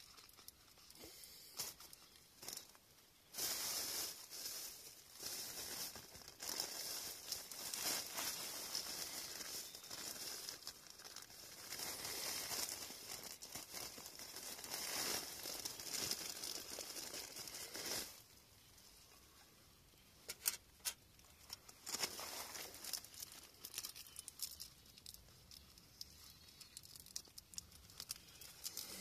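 Plastic bags rustling and crinkling as hands rummage through them: dense, continuous rustling through the first half, then quieter, scattered crinkles and crackles.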